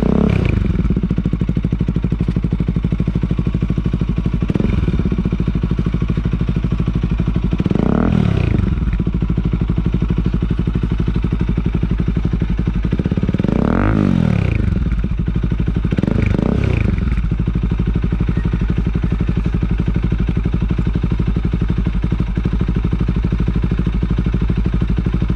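Motorcycle engine idling through an Akrapovic exhaust with resonator, revved several times in short blips that rise and fall quickly, then settling back to a steady idle for the last several seconds.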